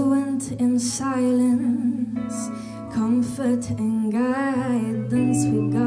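A woman singing with a small live band, over guitar accompaniment and held low notes.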